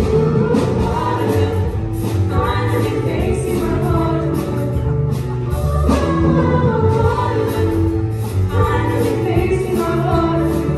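Ensemble of high school women singing together into handheld microphones over instrumental accompaniment, holding a note near the end.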